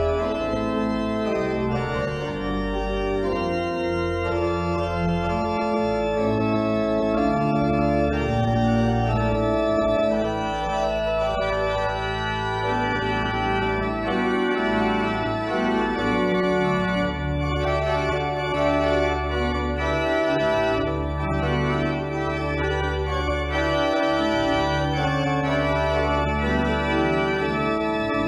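Organ playing a postlude: full sustained chords moving above long held low pedal notes, which hold steady through the second half.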